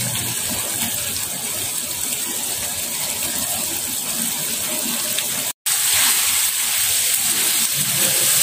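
Tempe and salted fish in chili sauce simmering in a frying pan on a gas flame: a steady bubbling hiss. The sauce is cooking down so the spices soak in. The sound drops out for a moment a little past halfway, then returns slightly louder.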